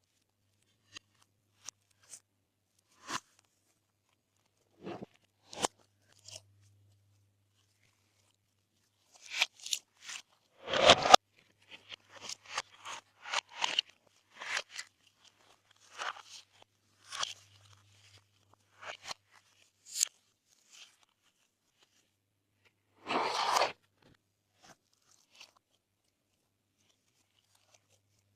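Glossy slime being worked by hand, making scattered sticky pops and clicks, busiest in the middle, with two louder, longer squelches about eleven and twenty-three seconds in.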